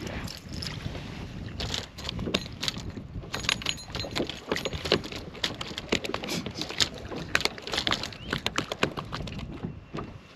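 Fishing rods and tackle being handled on a bass boat's deck, giving frequent sharp clicks and knocks at uneven spacing, over wind noise on the microphone.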